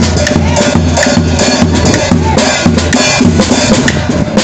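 Charanga percussion section playing a steady drum beat: a rope-tensioned wooden-shell bass drum booming under snare drums and a cymbal struck with drumsticks, in a quick even rhythm.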